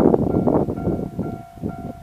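Japanese level-crossing warning bell ringing in fast repeated strokes, over the noise of an Enshu Railway electric train passing the crossing, loudest in the first second and easing off near the end.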